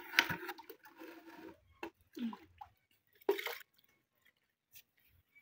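Plastic cups and cooking pots knocked and handled, with light splashes of liquid. The knocks come irregularly and die away a little past halfway.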